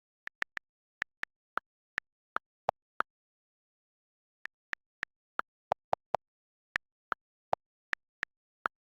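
A series of short, sharp electronic clicks in two irregular runs, about ten and then about thirteen, separated by a pause of about a second and a half, with dead silence between the clicks.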